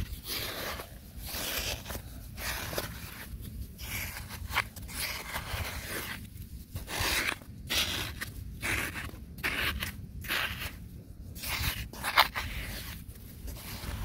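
A bare hand scraping and digging loose soil out of a small hole: irregular scratchy strokes of dirt being raked and pushed aside, with short pauses between them.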